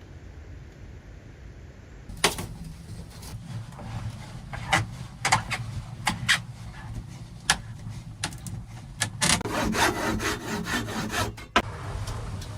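A run of irregular sharp wooden knocks and clicks, starting about two seconds in and growing into a denser scraping, crackling patch near the end, as wood is handled or worked.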